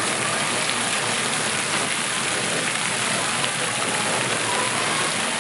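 Steady hiss of water from fountain jets splashing into a pond.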